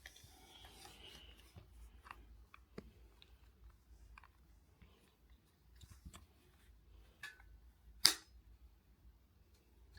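Small metal parts being handled: scattered faint clicks and taps from a pen spring and a camera housing's latch, with one sharp snap about eight seconds in.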